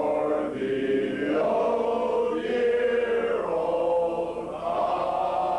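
A group of men singing together in slow, long-held notes.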